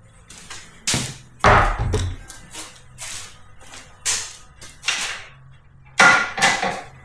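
Irregular metallic knocks and clatter of hand tools while a scooter's luggage rack is unbolted with a 12 mm socket, with a heavier thump about one and a half seconds in.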